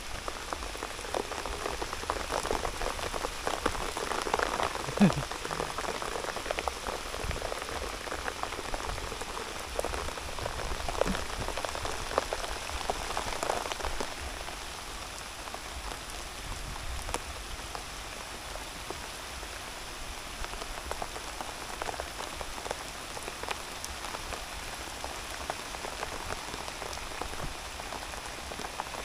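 Steady rain falling, with many individual drops pattering close by. It is heavier for the first half and eases a little after about fourteen seconds. One brief louder sound comes about five seconds in.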